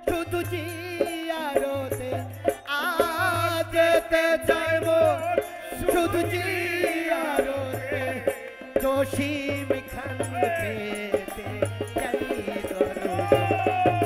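Live qawwali: harmonium chords under male voices singing ornamented, gliding lines, with a tambourine jingling and a hand drum keeping a steady beat. A long sung note is held and then falls away near the end.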